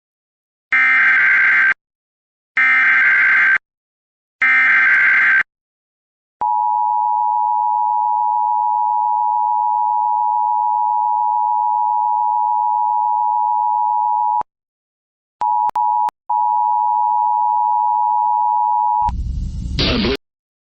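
Emergency Alert System broadcast of a blizzard warning: three one-second bursts of screeching digital data, then the two-tone attention signal, steady for about eight seconds. The signal breaks off, stutters back in, and runs for about three more seconds before a short burst of noise near the end.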